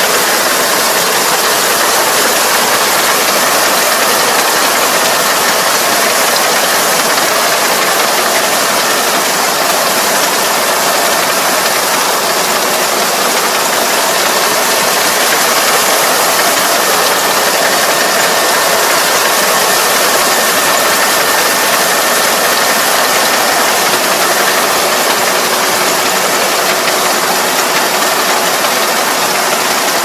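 Rice combine harvester running under load as it cuts and threshes flattened, lodged rice: a loud, steady mechanical noise of engine and clattering cutting and threshing works, unbroken throughout.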